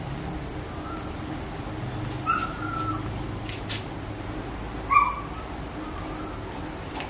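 Birds calling outdoors: a few short calls, the loudest about five seconds in, another a couple of seconds in, over a steady high-pitched hiss.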